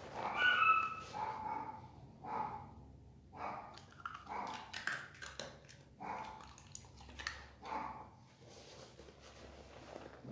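Two roughly half-year-old puppies whining and giving short yips, a series of separate cries with the loudest in the first second, in a tiled room.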